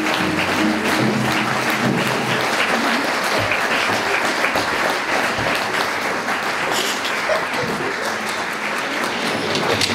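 Audience applauding steadily, with music dying away at the start.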